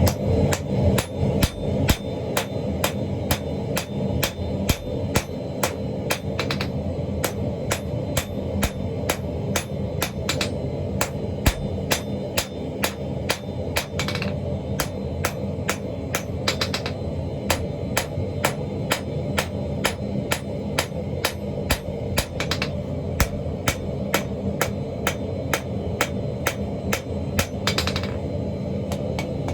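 Hammer blows on steel in a steady, rapid rhythm of about three strikes a second, over a steady low rumble.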